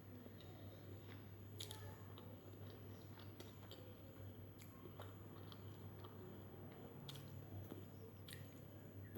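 A person chewing and eating chicken biryani close to the microphone, with soft wet mouth clicks and smacks scattered every second or so. A faint steady low hum runs underneath.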